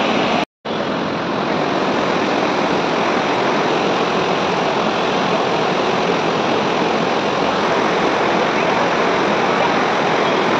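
Fast mountain river rushing over boulders in white-water rapids, a steady loud roar of water. It cuts out for a moment about half a second in.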